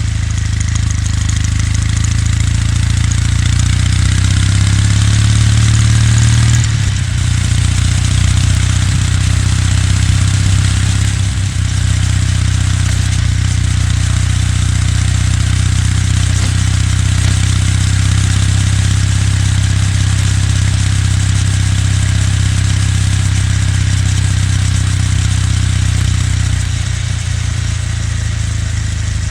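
Kawasaki W800's air-cooled parallel-twin engine and exhaust under way. The revs climb over the first several seconds, break off briefly about seven seconds in, then hold a steady note, which shifts slightly near the end.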